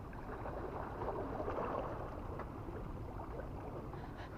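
Sea water washing and swirling against shoreline rocks: a steady rushing noise that rises a little about a second in.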